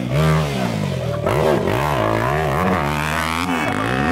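Dirt bike engine being revved in repeated throttle blips, its pitch rising and falling over and over.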